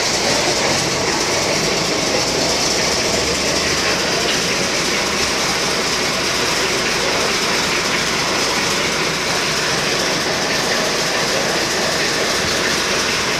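Mercedes-Benz O500MA articulated bus heard from on board, its diesel engine running with a steady rattle and clatter from the body and road. A low hum fades out about four seconds in.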